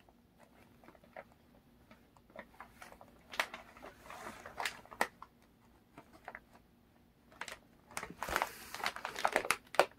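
Scattered rustling and crinkling of a canvas tote bag and the plastic snack packets inside it as a cat roots around with its head in the bag. The crinkles come in short, sparse bursts and grow busier near the end.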